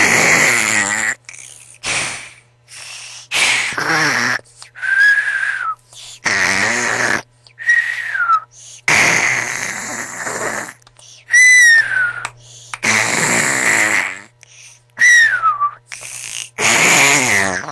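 A person snoring loudly: rattling snores with a shorter whistle that falls in pitch between some of them, about four whistles in all, in an uneven rhythm of roughly one breath every three to four seconds.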